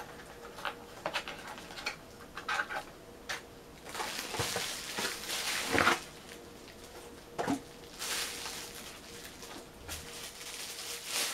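Cardboard and plastic packaging being handled and unwrapped, with scattered light taps and clicks at first, then bouts of crinkly rustling.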